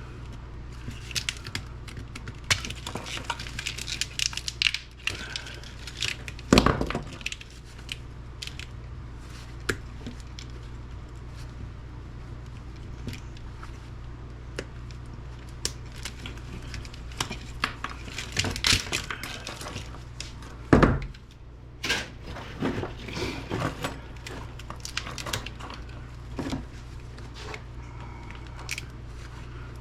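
Electrical tape being torn and peeled off a wire harness, with crinkling and rustling as the wires are handled, scattered clicks, and two louder knocks about 7 s and 21 s in. A steady low hum runs underneath.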